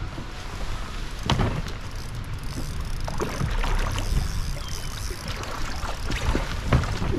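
Water splashing as a hooked bass thrashes at the surface beside a kayak, in several sharp splashes, over a low wind rumble on the microphone.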